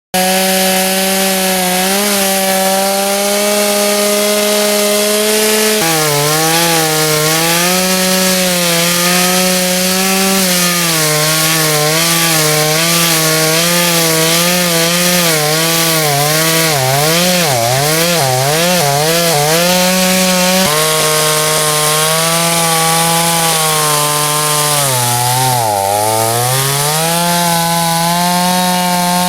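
Chinese-made two-stroke chainsaw cutting into a sassafras stump under load. Its engine pitch wavers and bogs as the chain bites, sagging hard about 25 seconds in before recovering.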